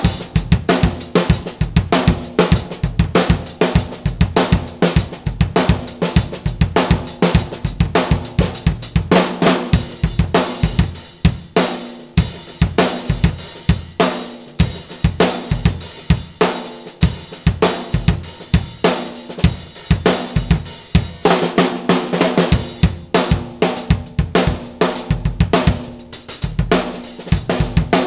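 Drum kit played continuously, featuring a Mapex Black Panther Machete 14x6.5 snare drum tuned low, with bass drum, hi-hat and cymbals. The cymbals wash louder through the middle part of the playing.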